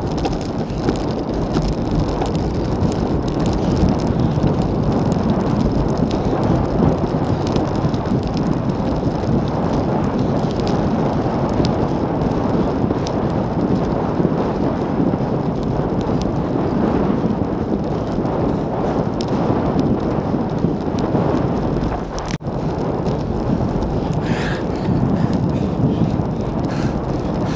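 Steady wind noise on the microphone of a handlebar-mounted camera on a road bike moving at speed, mixed with tyre noise on the road. The noise drops out briefly once, about 22 seconds in.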